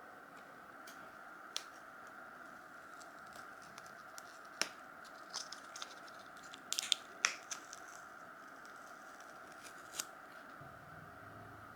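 Scattered sharp clicks, ticks and short scrapes of small objects being handled, busiest in the middle, over a steady background hum.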